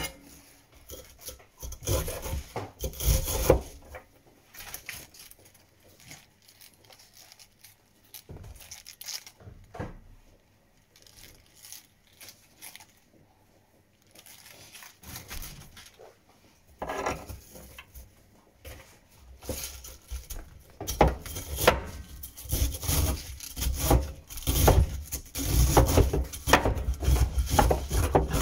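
Cleaver chopping cabbage on a wooden chopping board: sharp knocks of the blade through the leaves into the wood, scattered at first, and after a quieter stretch in the middle a quick, steady run of chopping.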